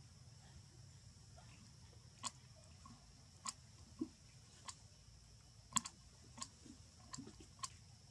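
Macaque grooming a baby macaque: faint, sharp clicks and smacks at irregular intervals, about seven in all, over a low steady hum.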